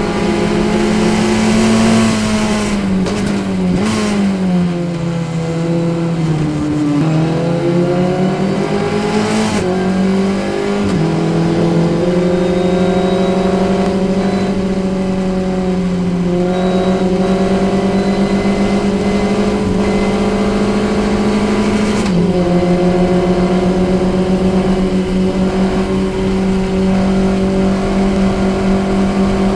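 Formula Ford race car engine heard from the cockpit, running hard under racing load. A few seconds in the revs fall away in several steps, as in braking with downshifts. They then climb slowly again under throttle, with one sudden brief drop about two-thirds of the way through.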